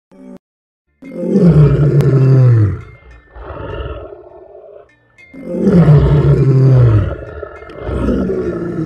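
Lion roaring twice: each roar is a loud, deep call about a second and a half long that slides down in pitch, followed by a quieter, shorter call.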